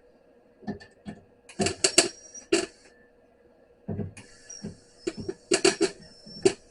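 Clusters of sharp metallic clicks and knocks, four short bursts with pauses between them, from hand work on a car's sheet-metal floorpan, over a faint steady hum.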